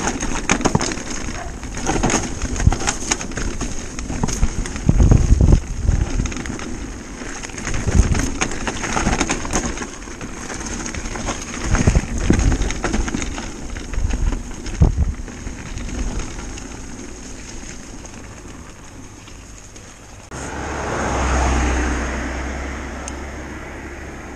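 Helmet-camera sound of an electric mountain bike riding fast down a rough woodland trail: tyres on dirt and roots, with knocks, rattles and thumps as the bike hits bumps. About twenty seconds in, a car passes on a road with a low rumble that swells and fades.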